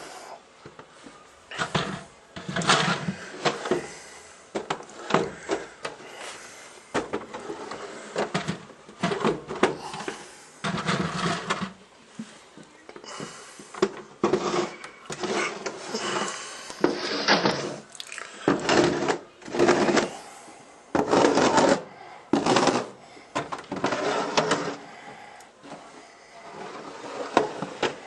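Snow shovel scraping and pushing snow in repeated, irregular strokes, roughly one every second or two.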